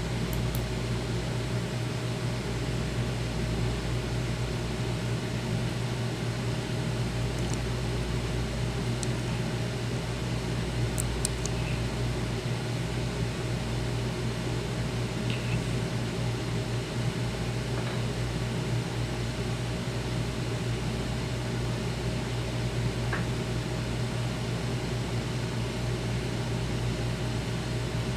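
Steady low hum with an even hiss, like a fan or electrical noise, unchanging throughout, with a few faint ticks.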